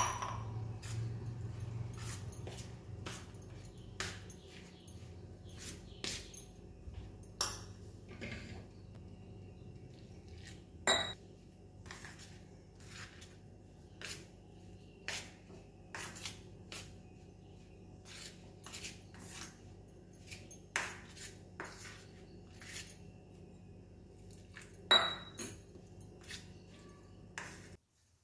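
Steel spoon clinking and scraping against a stainless steel plate in irregular taps, stirring roasted rice flour with hot water into dough. A sharp clink right at the start and a few louder clinks along the way.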